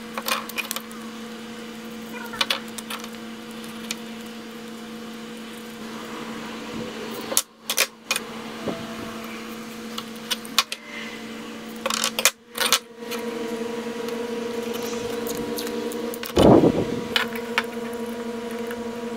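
Hands handling blue painter's tape on a wooden lure, making small clicks and rustles, over a steady low hum. Near the end a metal C-clamp is handled, giving metallic clinks and one louder scrape.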